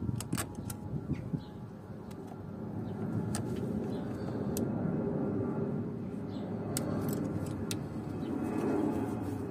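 Scattered small metal clicks of pliers working the spring hose clamps off the hoses on a tandem pump, over a low, steady rumble like nearby vehicle traffic.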